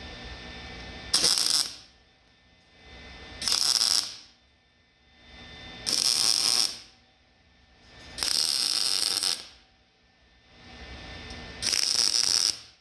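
MIG welder laying short tack welds on a steel truck frame: five separate bursts of crackling arc, each about half a second to a second long, a couple of seconds apart.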